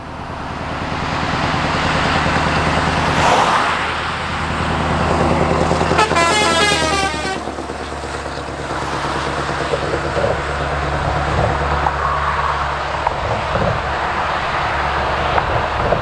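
Scania 164L 580's 16-litre V8 engine running as the truck drives past. A truck horn sounds once with a wavering pitch for about a second and a half, about six seconds in.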